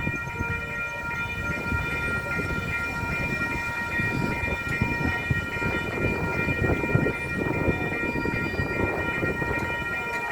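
MBTA MPI HSP46 locomotive running with its train: a low, uneven rumble and knocking, with a steady high-pitched tone held unbroken throughout.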